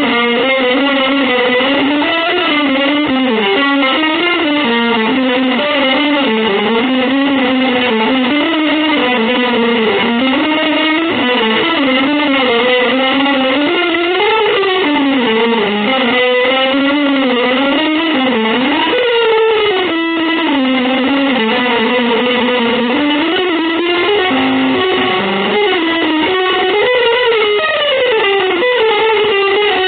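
Electric guitar playing fast, winding melodic lines without a break.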